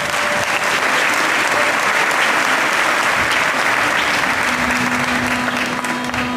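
Audience applauding, a dense steady clapping that eases off near the end as a low held musical note comes in.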